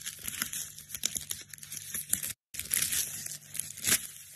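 Clear plastic shrink-wrap being torn and crinkled off a box: a dense run of crackles and sharp rips, broken by a short silent gap a little over two seconds in.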